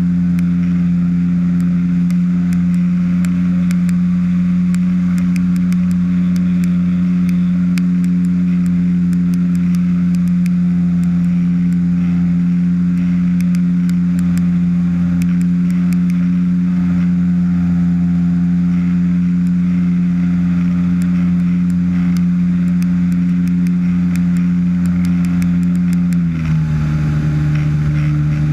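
Ultralight trike's engine and pusher propeller running at steady cruise power, a loud even drone, with scattered light clicks over it. Near the end the pitch drops a step as the engine is throttled back.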